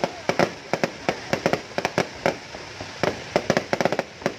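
Fireworks going off: a rapid, irregular string of sharp bangs and pops, several a second.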